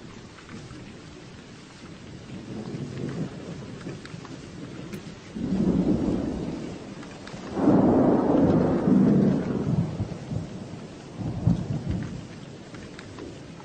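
Steady rain falling, with a rolling rumble of thunder that builds from about two seconds in, is loudest for a few seconds past the middle, and trails off with a last smaller rumble near the end.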